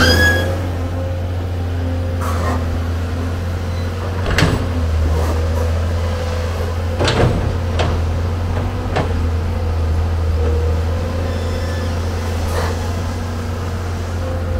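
Amphibious excavator's diesel engine running steadily with a low drone, with occasional sharp knocks at irregular intervals from the working machine.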